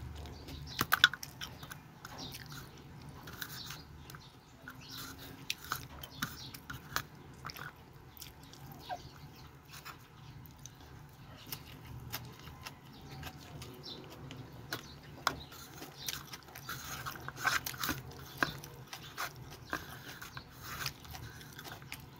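A person eating with their fingers and chewing, with many small scattered clicks and a few short louder mouth smacks.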